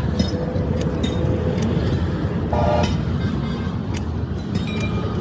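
Steady low rumble with scattered light metal clinks, and a brief pitched tone a little past halfway through.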